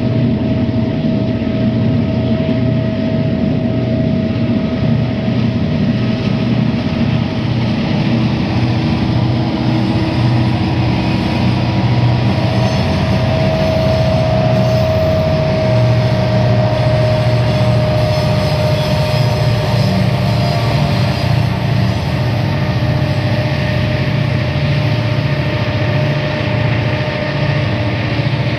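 Sound-equipped HO scale model of Santa Fe EMD diesel locomotives running: the onboard sound decoder plays a diesel engine working steadily, with a thin steady whine over it. The consist and its boxcars roll past on the track.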